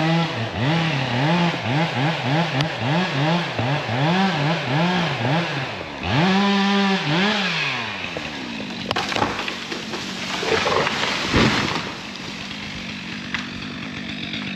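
Two-stroke chainsaw cutting, its throttle pulsed up and down about twice a second, then held high for a moment before it drops away to idle. After that come scattered cracks and a single low thump about eleven seconds in.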